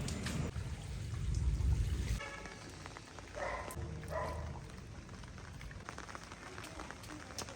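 Rain falling, with a heavy low rumble for the first two seconds. Two short pitched calls come about three and four seconds in.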